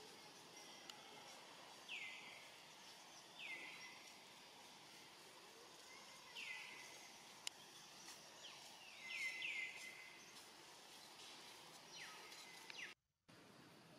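Faint bird calls, each a short note falling in pitch, repeating every one to three seconds over low background noise, with a quick triple of calls about halfway through. The sound cuts out completely for a moment near the end.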